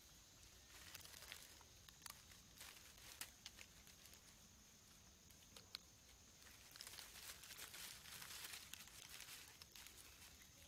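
Faint rustling and crackling of dry leaf litter, with scattered small clicks and a busier stretch of rustling about seven to nine seconds in.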